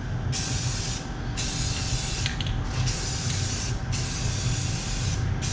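Pressurized spray hissing out in four bursts of about a second each, with short pauses between, over a steady low hum.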